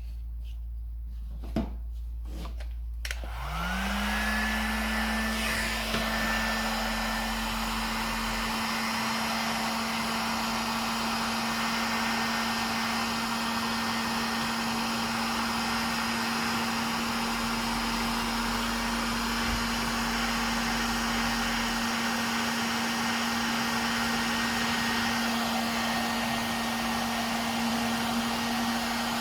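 A few clicks, then a heat gun switched on about three seconds in, its fan spinning up with a rising whine and then running steadily, blowing hot air to shrink heat-shrink tubing over a wiring connection.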